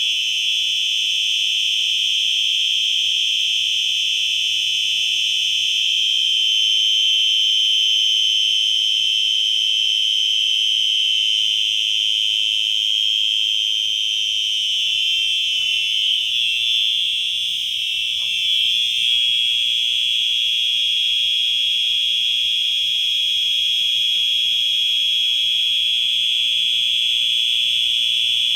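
Two Simplex 4903-9236 fire alarm horns sounding together in a loud, continuous high-pitched tone. Their slightly different pitches make the tone waver eerily around the middle.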